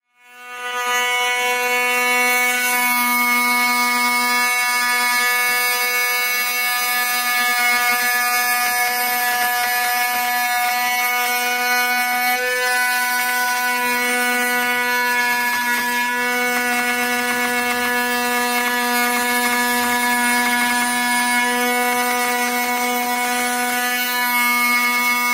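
PWNCNC 1.5 kW water-cooled spindle on a Shapeoko 3 XXL CNC router, an end mill slotting through aluminum plate: a steady, loud buzzing whine with a hiss of cutting, starting abruptly. The slotting pass is packing chips and building up too much heat, with speeds and feeds in need of rework.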